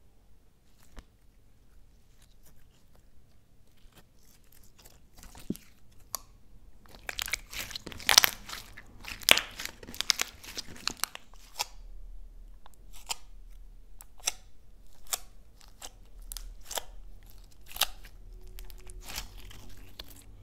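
Hands stretching, folding and pressing a glossy slime, giving sticky crackles and sharp pops. The pops are sparse at first, then come thick and loud about a third of the way in, and go on at a steadier rate after that.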